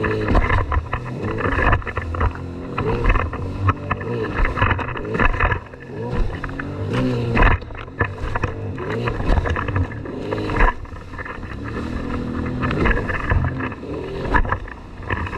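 Jet ski engine running at speed, its pitch rising and falling as the throttle changes, with the hull slapping over the waves and spray hissing.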